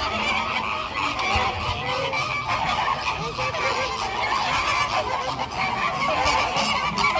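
A flock of flamingos calling together: many overlapping goose-like honks running on without a break.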